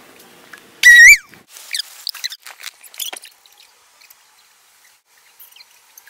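A loud, high-pitched squeak about a second in, wavering in pitch, followed by a quick string of shorter, fainter squeaks.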